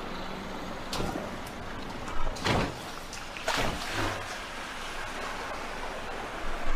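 A car driving into a flooded ford, its tyres splashing through the water in several loud surges over the steady rush of the floodwater.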